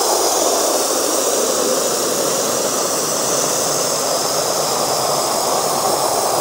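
Water from an outdoor hose spigot running full into a plastic wash bucket as it fills, a steady rushing splash.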